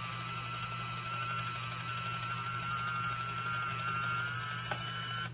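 Kitchen Mama One Touch battery-powered electric can opener running on a can: a steady motor hum with a thin whine that slowly rises in pitch as it cuts around the lid. There is a sharp click shortly before it stops near the end, the cut finished.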